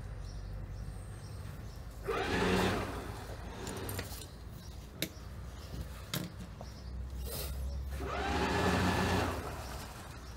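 Motorboat engine running with a steady low hum, swelling louder twice, with a couple of sharp knocks between the swells.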